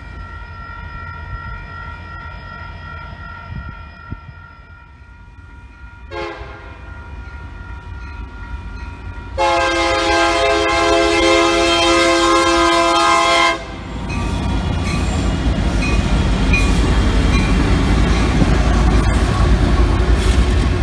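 Union Pacific locomotive's Nathan K3HA three-chime air horn blowing for a grade crossing: faint at first, a short blast about six seconds in, then a long loud blast from about nine seconds to past thirteen. After that comes the heavy rumble of the SD70M and GE locomotives and their wheels passing close by.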